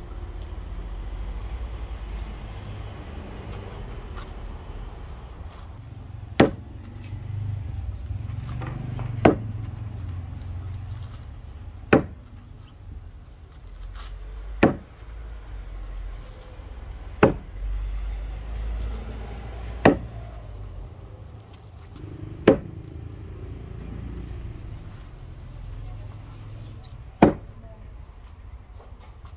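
A Plumb 4.5 lb axe biting into the end grain of a wooden stump: eight sharp, evenly spaced chops about two and a half seconds apart, starting about six seconds in, with a longer gap before the last one. A low steady rumble runs underneath.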